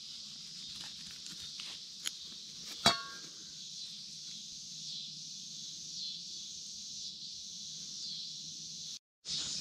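Evening chorus of crickets and other insects, a steady high-pitched trilling. A sharp metallic clink with a short ring comes about three seconds in, after a lighter tick a second earlier.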